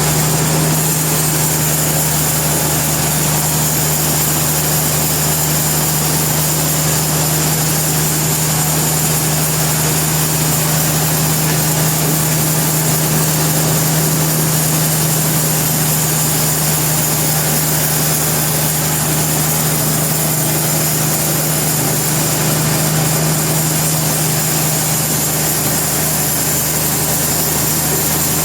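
Sawmill machinery running steadily, a constant low hum with a thin high whine above it and no change in load.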